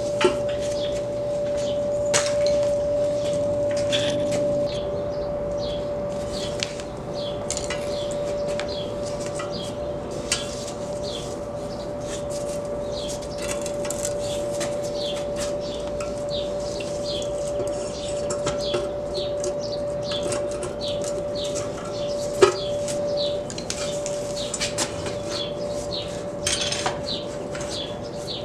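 Small birds chirping over and over in the background, with a steady hum throughout and a few sharp metal clinks of hand tools against the turbo and exhaust parts.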